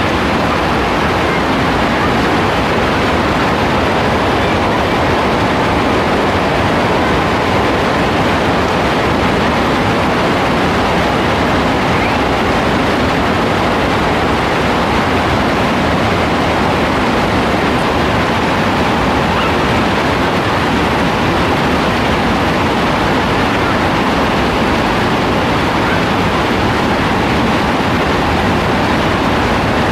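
Heavy rain pouring down steadily, a loud, even hiss with no let-up.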